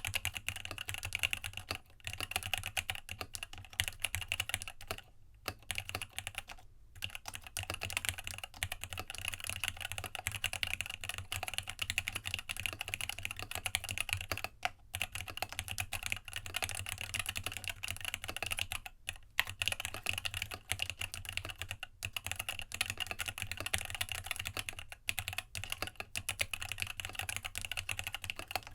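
Continuous fast typing on a Rama Works U80-A mechanical keyboard with Gateron Tealios linear switches in a brass plate with internal dampening and PBT keycaps: a dense, steady stream of keystroke clacks with a few brief pauses.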